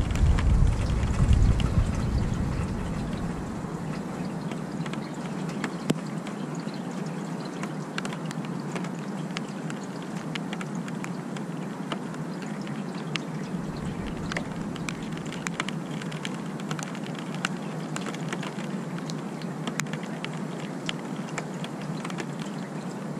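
Steady rain falling in a thunderstorm, with many small drops ticking close by. A low rumble at the start dies away over the first few seconds.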